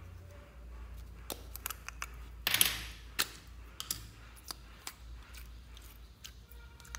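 Small plastic slime tub being handled and its lid taken off: scattered light clicks and taps, with one louder brief rustle about two and a half seconds in.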